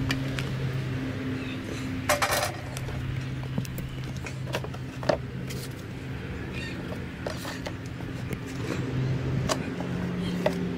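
Light clicks and knocks from cardboard and packing pieces being handled, with a brief clatter about two seconds in and a single sharper knock about five seconds in, over a steady low hum.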